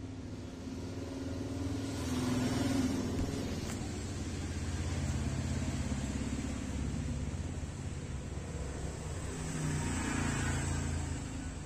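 Low rumble of a motor vehicle engine, swelling twice as vehicles go by, around two seconds in and again near the end.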